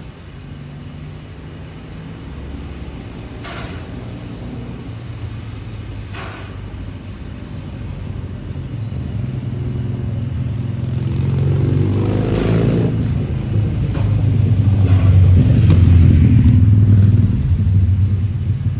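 Low engine rumble of a passing vehicle, growing louder through most of the stretch, loudest near the end, then easing off.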